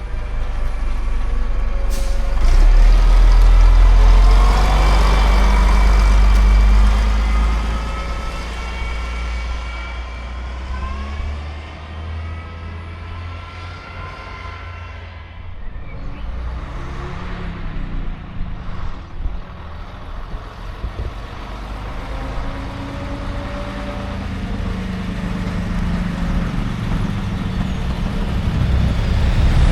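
Classic diesel bus engines running and pulling away, the engine note rising in pitch as they accelerate. The rumble is loudest in the first third, fades midway, then builds again near the end as another bus draws near.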